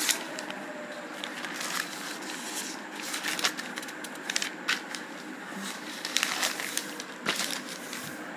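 Paper pages of a spiral-bound notebook being turned and handled: a series of short, scattered rustles and crackles.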